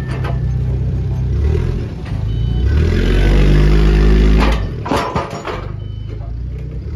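Tracked shredder's diesel engine running, revving up from about two and a half seconds in and dropping back a couple of seconds later. Sharp metal clanks come around five seconds, as the machine's perforated screen cage shifts.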